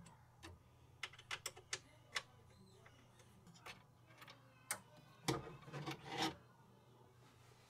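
Metal hex key clicking and scraping against a screw head and the printer's metal parts as a screw is worked loose: a quick run of sharp light clicks, a few scattered ticks, then a longer rubbing scrape a little past five seconds in.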